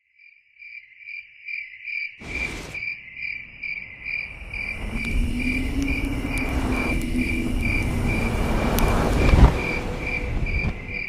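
A cricket chirping steadily, about two chirps a second. A low rumble joins about two seconds in, swells with a slowly rising hum to its loudest near nine seconds, then fades.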